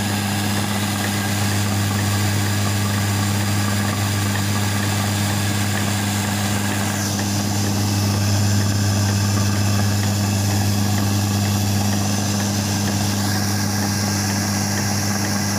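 Atta chakki (stone flour mill) running under load, with grain trickling from the hopper into the millstones: a steady, deep hum that does not change.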